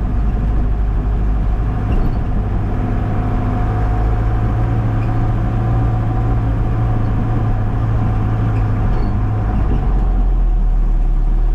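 Loaded cattle truck's engine running steadily while driving on a dirt track, heard from inside the cab. Its note drops lower about ten seconds in.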